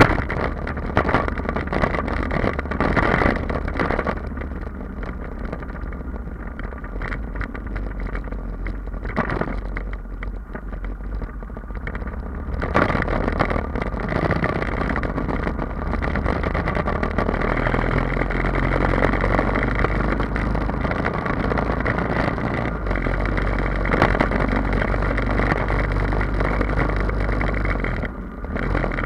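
Royal Enfield Himalayan's 411 cc single-cylinder engine running through an Akrapovic exhaust with the dB killer removed, heard while riding. The note eases off around ten seconds in, picks up again about thirteen seconds in and holds steady, then dips briefly near the end.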